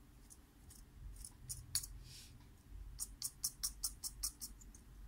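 Small laptop cooling fan from a ThinkPad X1 Carbon turned by a finger, its rotor giving faint dry clicks and a short scrape, then a quick run of about six clicks a second: the fan's bearing has failed and is completely shot.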